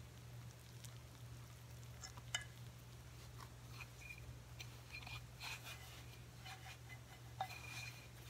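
Hands mixing flour, oil and warm milk into a soft bread dough in a glass bowl: faint squishing and rustling with soft clicks against the glass, two sharper ticks among them. A steady low hum runs underneath.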